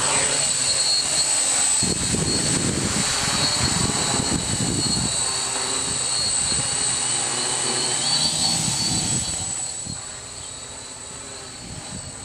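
HJ450 quadcopter's four Emax 2212 980KV brushless motors spinning 10x4.5 propellers as it takes off and climbs away: a steady high-pitched whine over a rough low rumble. It fades about ten seconds in as the drone gets further away.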